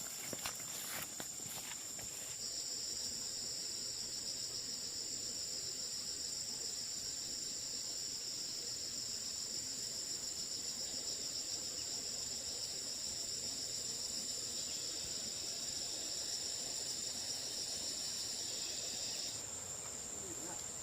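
Insects calling in a steady high-pitched trill, with a second, slightly lower trill joining about two seconds in and stopping shortly before the end.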